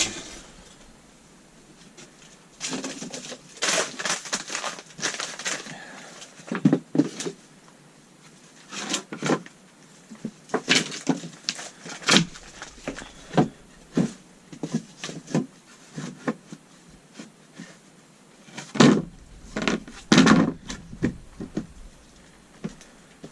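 Wooden boards being handled and set down: irregular knocks and clatter with rustling in between.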